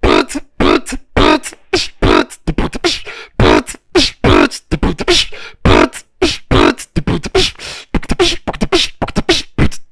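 Rhythmic beatboxing as intro music: loud vocal beats in short, punchy phrases with brief gaps between them.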